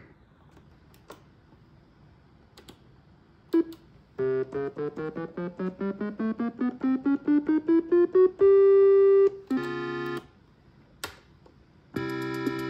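Suzuki Omnichord OM-84 electronic instrument, repaired for power cutting out and glitching. A few faint clicks, then about four seconds in a slow swipe across the strumplate plays a rising run of short notes. A single held tone and a brief chord follow, and a sustained chord starts near the end.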